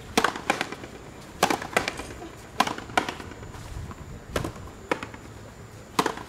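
Frontenis rally: a hard rubber ball cracking off rackets and slapping against the fronton wall, the sharp strikes mostly coming in pairs about a third of a second apart, a new pair every second and a half or so.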